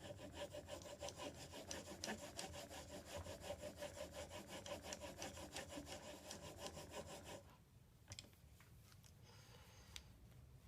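Steel chisel bevel, held at 25 degrees in a Veritas honing guide, rubbed back and forth on a 400-grit sharpening stone: a steady run of rapid scraping strokes that stops about seven and a half seconds in, followed by a few faint clicks.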